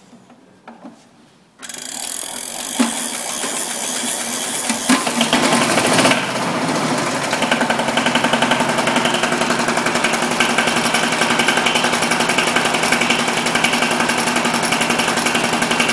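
Single-cylinder Hatz diesel engine on a pedestrian roller being hand-cranked and catching about a second and a half in, then running with a fast even beat that settles a few seconds later. It is a cold start with the excess-fuel starting aid engaged.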